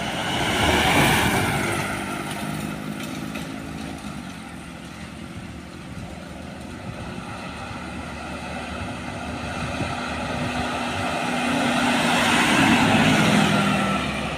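Trucks and motorcycles passing close by on a road: a light cargo truck goes past about a second in, then a large box truck approaches and passes near the end, its engine note rising and fading as it goes by.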